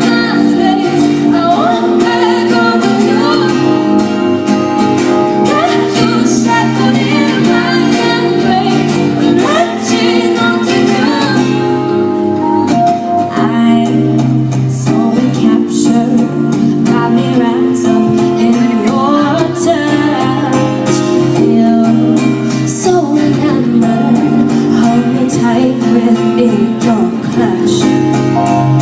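A woman singing a song with instrumental backing, continuously and without a pause.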